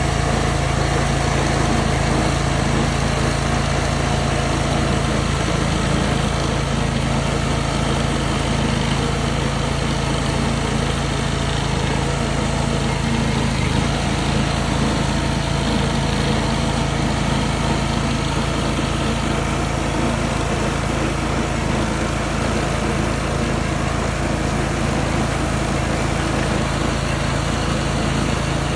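Engine running steadily at a constant speed, a continuous hum without pauses or revving.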